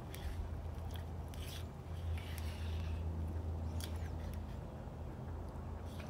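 A stir stick scraping and scratching against the inside of a small plastic cup in short, irregular strokes as mica powder is stirred into epoxy resin, over a steady low hum.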